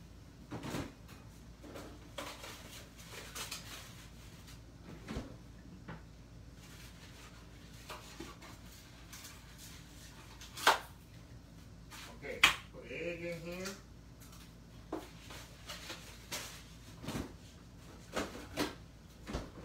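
Kitchen handling sounds: scattered light knocks and clicks of containers and utensils being set down and moved, with two sharp knocks about ten and a half and twelve and a half seconds in.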